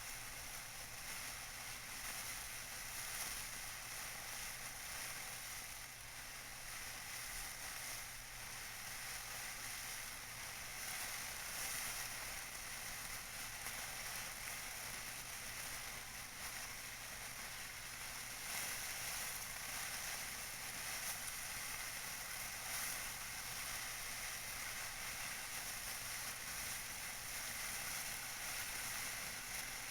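Tissue paper being crinkled by hand, a steady, dense crackling with no pauses.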